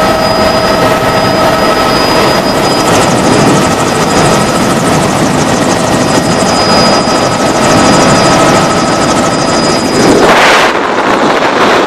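Helicopter in flight heard from aboard: a loud, steady rush of rotor and engine noise with a high, steady whine over it. About ten seconds in the noise swells briefly into a louder rush.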